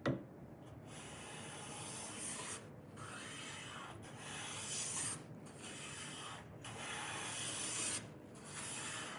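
Hand plane with a freshly honed blade taking about six long strokes along a wooden board, each a steady hissing shave with a short pause between strokes.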